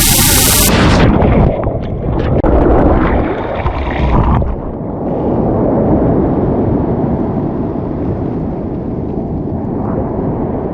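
Surf rushing and churning around a kayak: a loud, low rumbling wash of breaking water, with wind buffeting the camera microphone, easing after about five seconds.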